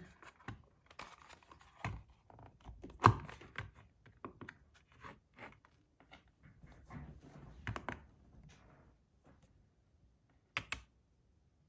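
Small clicks and knocks of the disassembled stainless steel fidget spinner's metal parts being handled and set down for weighing, with one sharper knock about three seconds in and a pair of clicks near the end.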